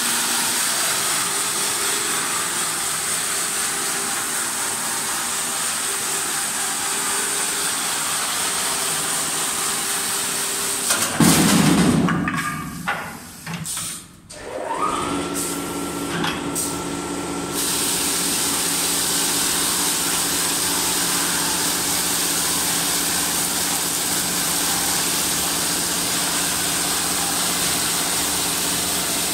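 Automatic wood spindle sanding machine running: electric motors and a belt-driven abrasive flap wheel spinning, with a steady whir and high hiss. About a third of the way in the noise breaks off with a brief loud burst, then a motor spins up with a rising whine, holds a steady tone, and the full whir and hiss return.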